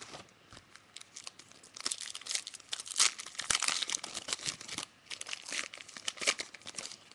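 Trading card pack wrapper being torn open and crinkled, in two spells of crackling with a short pause between them.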